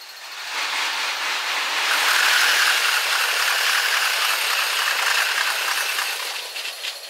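A 15-car JR electric commuter train passing close by, its wheels running over the rails. The sound is sped up sixfold: the pass swells about half a second in, peaks, and dies away within seconds, higher-pitched than in life, with a few sharp clicks near the end.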